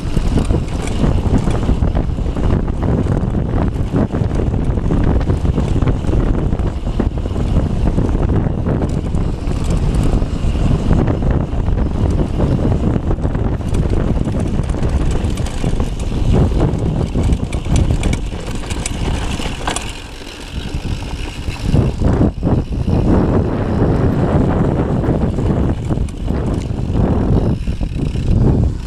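Mountain bike rolling fast over a dry dirt trail: tyre noise on the dirt and rattling knocks from the bike over bumps, under heavy wind buffeting on the microphone. It eases briefly about twenty seconds in.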